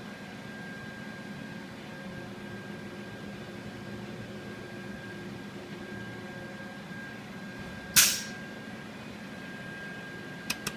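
Steady machine hum with a thin, steady high whine. About eight seconds in comes one short, loud burst of noise, and two sharp clicks follow near the end.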